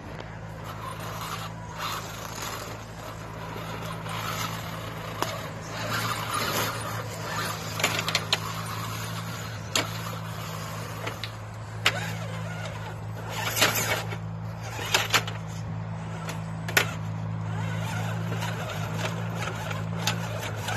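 RC scale crawler truck's electric motor and gears whining steadily at crawling speed. Scattered clicks and knocks from the tyres and chassis bumping over the logs.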